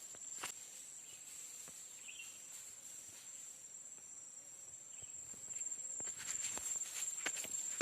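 Steady high-pitched drone of insects. Scattered crackling snaps, like footsteps on dry forest litter, become more frequent near the end.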